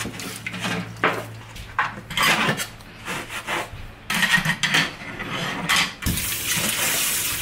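Dishes and utensils clinking and scraping against each other and the stainless steel sink as they are scrubbed with a soapy sponge, a metal grater among them. About six seconds in, the tap comes on and water runs steadily.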